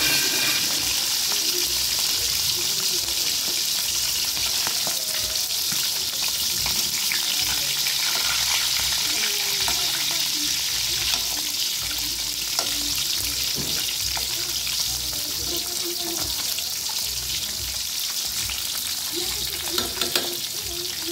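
Butterflied milkfish (bangus) frying in hot oil in a wok: a steady sizzle, with a metal ladle scraping and clinking against the pan as oil is spooned over the fish, and a few sharper clinks near the end.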